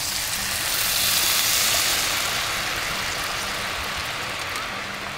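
White wine poured into a hot pan of butter, shallots and garlic, sizzling hard as it hits; the hiss swells about a second in, then slowly dies down as the wine heats.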